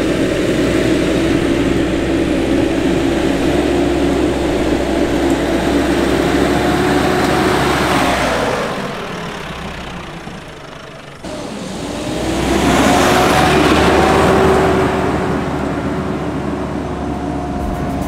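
Four-wheel-drive ute driving past on a dirt bush track, engine running and tyres on loose dirt. It swells to its loudest as it goes by about eight seconds in, then fades. After a sudden change it swells again, loudest about thirteen seconds in, and settles to a steady engine sound near the end.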